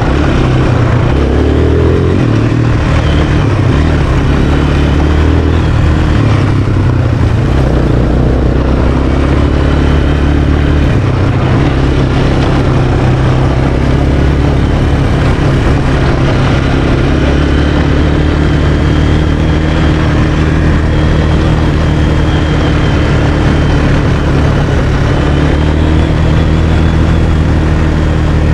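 Sport quad (ATV) engine running under way, its note shifting up and down with the throttle every few seconds.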